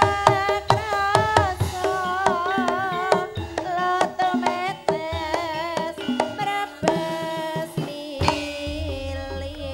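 Live Javanese gamelan music for dance: quick hand-drum strokes, as from a kendang, drive the rhythm under a wavering high melody with vibrato, with gong tones in the low register.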